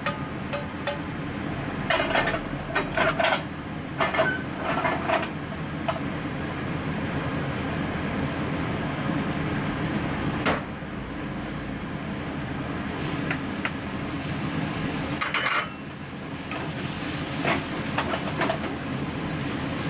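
Cooking utensil clattering and scraping against a frying pan in bursts while bean sprouts are stir-fried, over a steady low hum.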